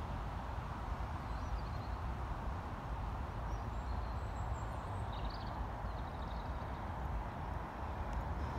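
Steady low rumble of wind on the microphone, with a horse's soft hoofbeats on the sand arena faint in the distance and small birds chirping briefly now and then.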